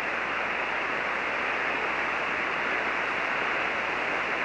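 Steady static hiss from a ham radio receiver on 40-metre SSB, 7.188 MHz, while no station is transmitting: the open channel between the handover and the other operator's reply. The hiss is even and unbroken, with no highs above the narrow SSB receive bandwidth.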